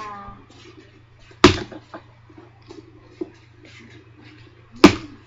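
Two loud sharp knocks, about three and a half seconds apart, with faint small handling sounds between them.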